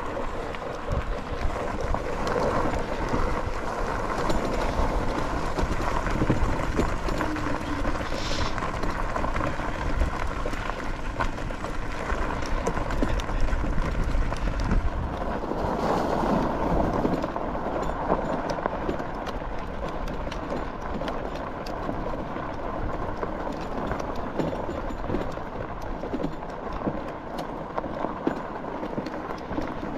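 A small motor vehicle's engine running steadily while it is ridden along, mixed with a constant rushing noise.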